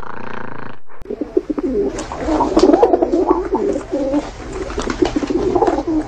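Feral pigeons cooing repeatedly over the splashing of a fountain's water.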